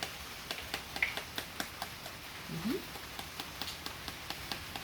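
Spoon tapping around the top of a raw eggshell to crack it open: a quick run of light clicks, about four or five a second.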